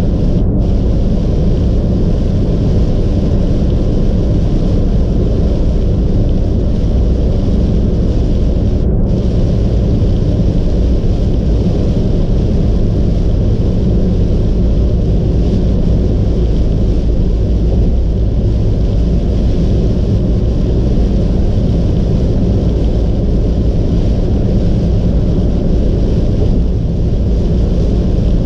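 Steady low rumble of a car driving on a wet expressway, heard from inside the cabin: tyre and road noise mixed with wind and engine.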